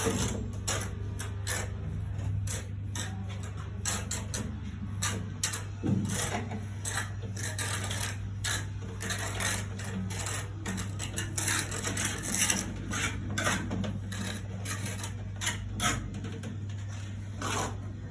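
Irregular clicks, taps and rubbing from parts and tools being handled during plumbing work, over a steady low hum.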